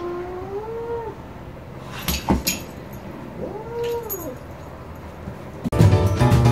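Tabby cat giving two long, drawn-out meows that rise and then fall in pitch, about three seconds apart, with a few sharp clicks between them. Music with drums starts near the end.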